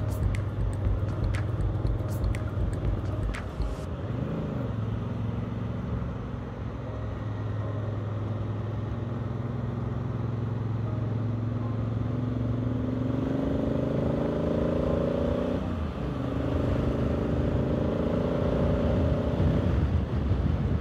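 Motorcycle engine recorded on the bike while riding. The engine note dips briefly about four seconds in, then climbs steadily as the throttle is opened, drops sharply near sixteen seconds and settles again, over wind and road noise. A few sharp ticks sound in the first few seconds.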